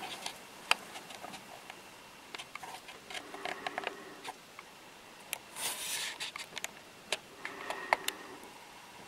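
Scattered light clicks, taps and short rustles of a camera being handled and someone shifting about in a small enclosed space, with a sharp click just under a second in and a longer rustle around six seconds.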